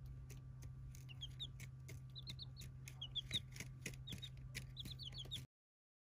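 Chicks peeping: short high cheeps, often two or three in quick succession, with frequent sharp ticks over a steady low hum. The sound cuts off suddenly near the end.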